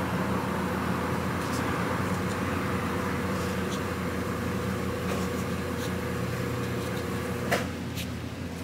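Steady mechanical hum with a constant faint tone, and a single light click near the end.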